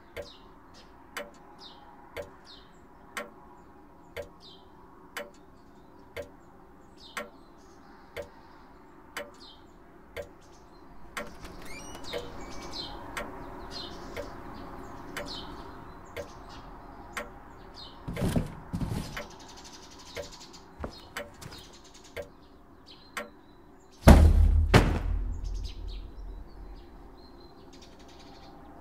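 Steady ticking about once a second under faint bird chirps. Near the end comes a sudden heavy thud with a deep boom that dies away over a couple of seconds.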